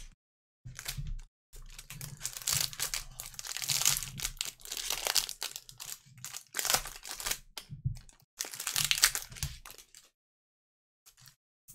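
Clear cellophane wrapper around a pack of trading cards crinkling as gloved hands handle and open it, in irregular spells that stop about ten seconds in.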